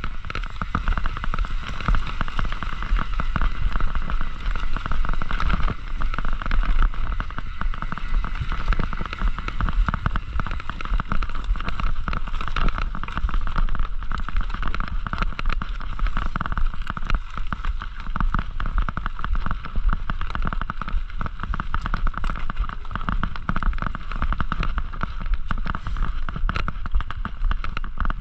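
Mountain bike ridden along a rough cross-country trail: steady tyre noise on the ground with constant rattling and clicking from the bike.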